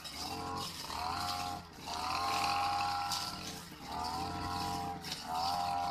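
Brush cutter with a cutting blade mowing tall grass, its small engine revving up and easing off in repeated surges every second or two as the blade swings through the grass.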